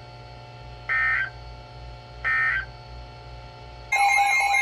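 Emergency Alert System end-of-message data bursts: short two-tone digital chirps repeated about every second and a half, sounding twice. About four seconds in, a loud, steady two-tone alarm starts, the attention signal that opens the next alert.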